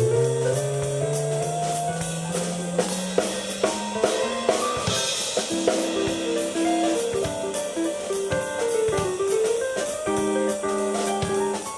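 Live keyboard and drum kit duo playing a rock jam: held keyboard chords and melody over a bass line that slides upward at the start, with snare and bass-drum hits and a cymbal crash about five seconds in.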